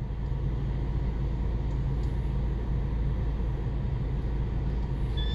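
Steady low engine rumble of a car idling, heard from inside the cabin. Near the end a short high-pitched call rises briefly over it.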